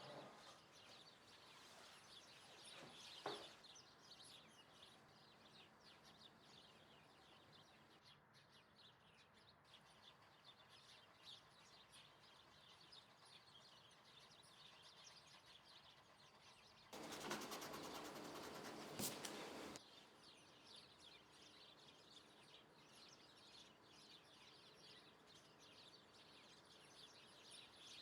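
Near silence with faint birds chirping throughout. There is a single click about three seconds in, and a louder steady noise lasting about three seconds a little after halfway.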